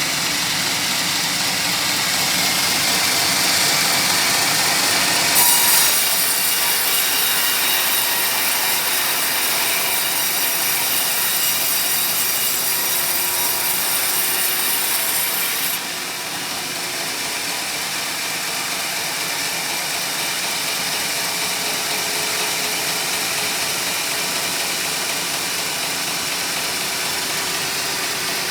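Sawmill saw cutting lengthwise through a teak log, a steady sawing noise. The high hiss grows stronger about five seconds in and eases about sixteen seconds in, where the sound gets slightly quieter.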